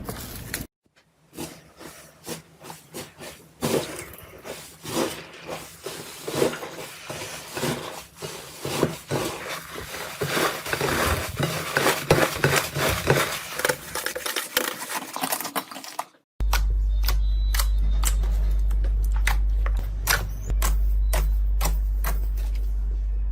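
Slime being squished, pressed and poked by hand close to the microphone, with many small wet clicks and crackles. After a cut about two-thirds of the way through, sharper isolated clicks sit over a steady low hum.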